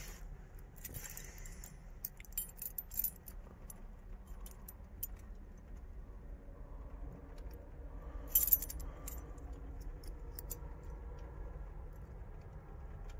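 A bunch of car keys jingling on their ring as they are handled, in a few short clinking bursts, the loudest about eight seconds in.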